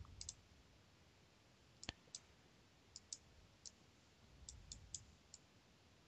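Faint, scattered clicks of a computer mouse, about ten at irregular intervals, the sharpest just under two seconds in.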